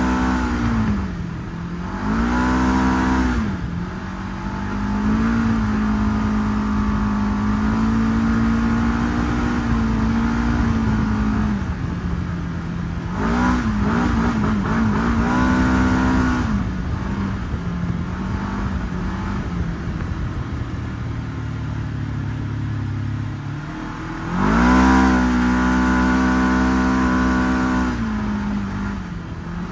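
Segway 1000 UTV engine running under throttle on sand, its pitch mostly held steady and dropping then climbing again several times as the throttle is lifted and reapplied.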